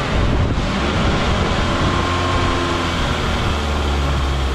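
Nissan 240SX's KA24E 2.4-litre inline-four engine idling steadily just after starting, running rougher than usual; a vacuum line left unplugged is suspected.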